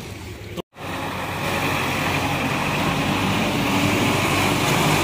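After a brief cut-out about half a second in, a Sonalika backhoe loader's diesel engine runs steadily. It grows louder over about a second and then holds even.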